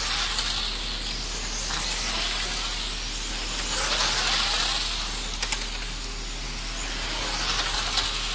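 1/10-scale electric radio-controlled race cars lapping the circuit: a high-pitched motor whine that rises and falls as they accelerate and brake. Two sharp ticks come about five and a half seconds in.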